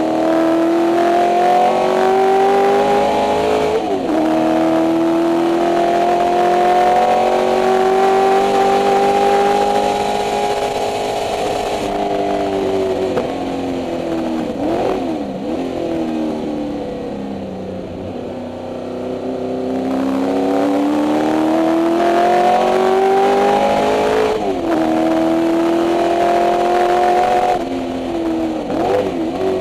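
Ford 289 Windsor V8 of a 1964 Mustang race car, heard from inside the cabin, running hard on track. The revs climb, drop at an upshift about four seconds in and hold high, then fall away with short throttle blips on downshifts midway, climb again through another upshift, and blip down again near the end.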